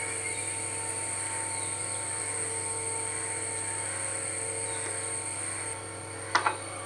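A steady electric hum with a thin high whine above it, as from a small electric motor or fan running. There is a short sharp sound near the end.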